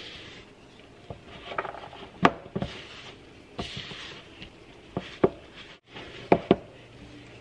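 Wooden spoon stirring thick biscuit dough in a mixing bowl: soft scraping and rubbing, with several sharp knocks of the spoon against the bowl, the loudest about two seconds in and a quick pair near the end.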